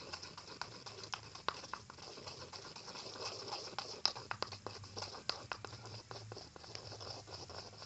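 A utensil stirring shampoo and body wash in a bowl, giving irregular light clicks and taps, several a second, against the bowl.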